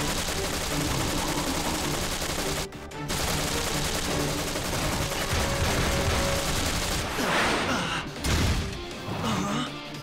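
Cartoon sound effects of rapid-fire laser blasts in a robot battle, dense and continuous, with action music underneath; everything breaks off briefly about three seconds in.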